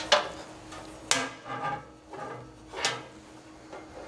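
A few sharp metallic clanks and rattles with short ringing, about a second apart, as the igniter rod and its wiring are fed back through the pellet grill's sheet-steel housing.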